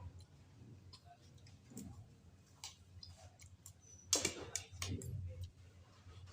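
Eating sounds: scattered small clicks and taps of utensils and chewing, with a louder burst of clicks about four seconds in.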